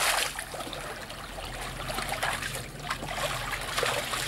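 Pool water splashing and sloshing as a person wades quickly across a swimming pool. The splashing is loudest in one big splash at the very start.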